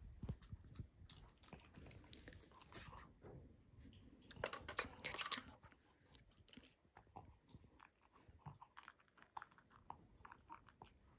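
A pug eating chopped vegetables and meat from a raised bowl: a run of small wet chewing and crunching sounds and bites. The loudest cluster comes about halfway through.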